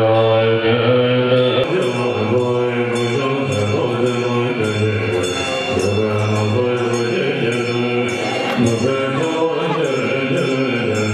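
A congregation chanting Tibetan Buddhist prayers together in unison: a steady, low-pitched recitation that flows in phrases.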